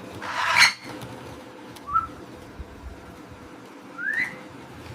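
A parrot calling: a harsh squawk near the start (the loudest sound), a short chirp about two seconds in, and a rising whistle about four seconds in.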